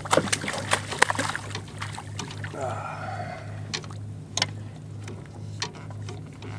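Water splashing and sloshing beside a kayak, with dense sharp splashes in the first second and a half and lighter scattered ones after, over a steady low hum.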